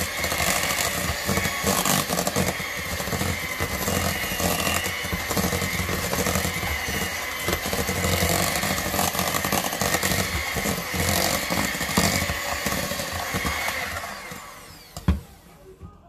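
Kenwood 150 W electric hand mixer running steadily as its beaters churn thick cake batter in a stainless steel bowl. The motor fades out near the end, followed by a single sharp knock.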